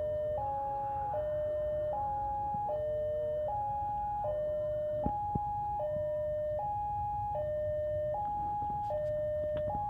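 Railway level-crossing warning alarm sounding a steady electronic two-tone, alternating high and low notes about three-quarters of a second each, over a low rumble.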